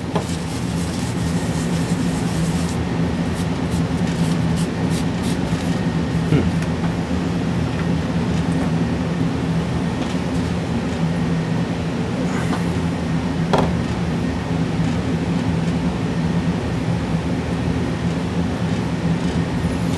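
Steady machine hum, a low drone with several pitches. A few faint clicks and scrapes come through as stuck-on thermal paste is rubbed off a graphics card.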